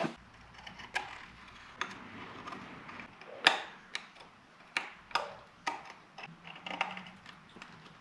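A metal scriber marking out hole positions on steel bracket pieces: faint scratching with irregular light clicks and taps as the scriber and metal parts are handled, the sharpest tap about three and a half seconds in.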